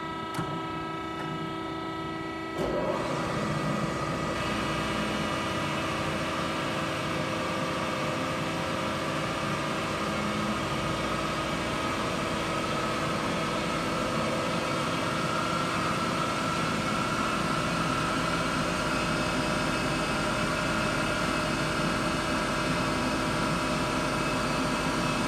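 Marvel V10A2 vertical band saw's blade drive starting with a click about two and a half seconds in, after a steady hum, then running steadily. Its whine rises slightly in pitch as the blade speed is turned up to about 300 feet per minute.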